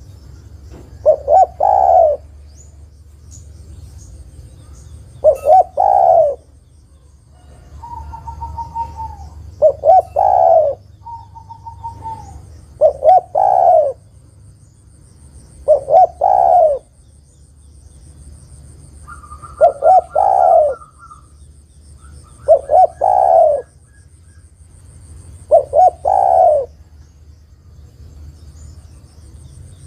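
Spotted dove cooing: a repeated short phrase of quick notes ending in a longer coo, eight times, about every three seconds. The uploader presents it as a female calling to a male. Fainter whistled chirps from another bird come in between the coos.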